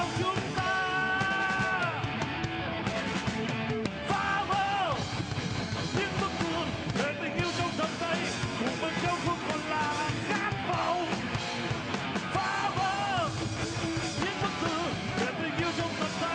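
A rock band playing live, with an electric guitar lead of held notes that bend downward at their ends, over steady drums and bass.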